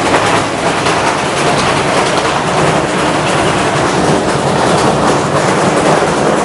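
Front-loading washing machine running with a brick tumbling in its drum: a loud, steady clattering rumble.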